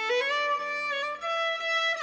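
Background music: a slow melody of held notes, climbing in pitch.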